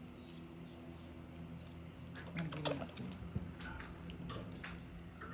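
Spider monkeys squabbling over food: a cluster of short squeaks and chirps with scuffling, starting a little over two seconds in.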